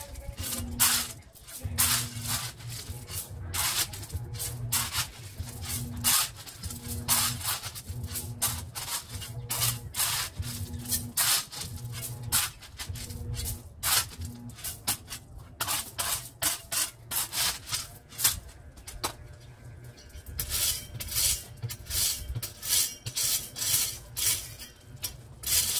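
Garden tool scraping and digging into loose gravel, the stones crunching and rattling with each stroke, roughly one or two strokes a second and coming faster near the end.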